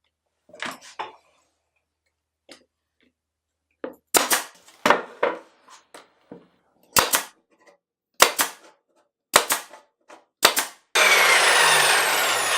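Brad nailer firing brads into plywood: a run of about eight sharp shots, roughly a second apart, after some light handling. Near the end a loud power-tool motor starts abruptly, its pitch slowly falling.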